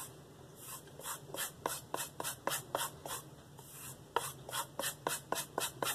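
Mercer nakiri blade stroked back and forth over a cowhide paddle strop loaded with aluminum oxide compound: quick light swishes, about four a second, with a brief pause a little past halfway. This is edge-trailing stropping to clean off the last of the burr left by the 320 grit stone.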